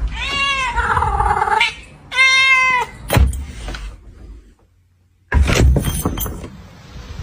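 Domestic cat meowing twice: a long, drawn-out meow, then a shorter one. A sharp knock follows, and later a short clatter of knocks.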